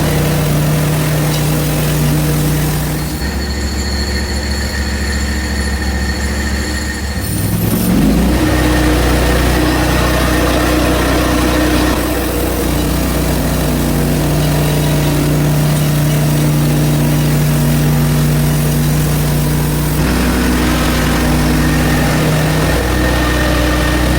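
Portable band sawmill's gasoline engine running steadily as it saws through a birch log. About three seconds in it drops to a lower, duller note, then revs back up about seven seconds in.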